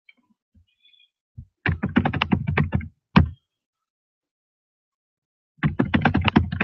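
Typing on a computer keyboard: two quick bursts of rapid keystrokes, with one louder single key stroke just after the first burst.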